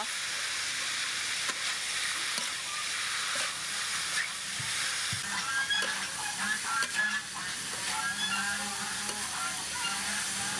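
Chopped pork with lemongrass and chillies sizzling in a large metal wok while a metal spatula stirs and turns it, with scattered clicks and scrapes against the pan.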